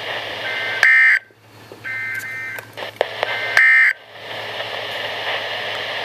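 NOAA Weather Radio end-of-message data tones from a Midland weather radio's speaker: three short bursts of shrill two-tone digital signal, about one and a half seconds apart, marking the end of the warning broadcast. Steady radio hiss follows.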